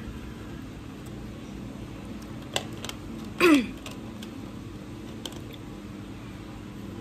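Steady low room hum, with a couple of light clicks about two and a half seconds in. About three and a half seconds in comes the loudest sound: a short squeak that falls quickly in pitch.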